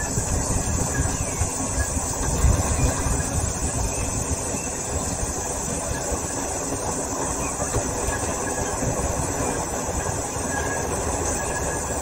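Steady road noise of a car driving along a paved highway: a low tyre-and-engine rumble with no sudden events.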